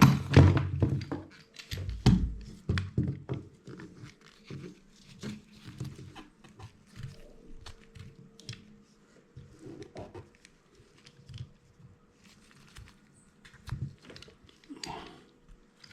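Steel pliers working open the tape-wrapped brass valve assembly of a Crosman 760 multi-pump air rifle: scattered clicks, knocks and handling noises, loudest and busiest in the first few seconds, with a heavier knock about two seconds in, then sparser.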